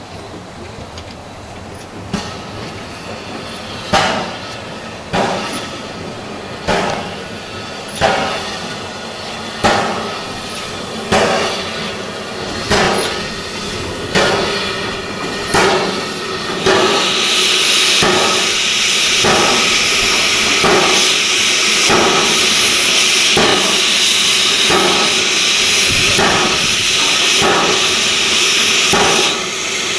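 Small steam tank locomotive Poziers working slowly along the track: sharp exhaust chuffs about every second and a half, growing louder as it comes closer. About halfway through, a loud steady hiss of escaping steam starts over the beats and cuts off just before the end.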